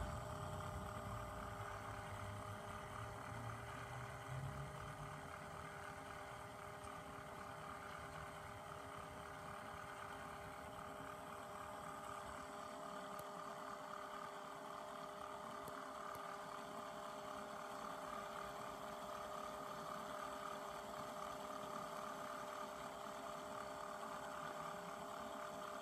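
Timberkits wooden beam engine model running, driven by its 12-volt geared electric motor: a steady hum that holds the same pitch throughout.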